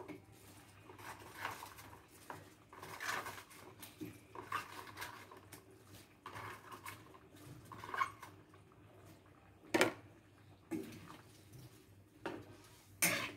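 Shredded cabbage being tipped and pushed from a plastic tub into a wok of soup, then a metal ladle stirring and scraping in the wok, with two sharp knocks of the ladle against the wok, one about ten seconds in and one at the end.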